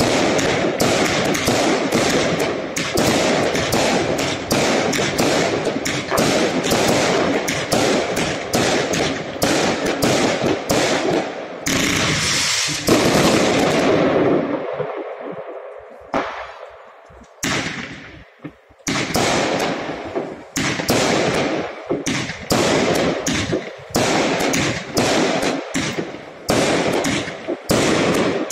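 Aerial fireworks launching and bursting in rapid succession, several bangs a second. About halfway through they thin to a few scattered bangs, then pick up again into dense volleys.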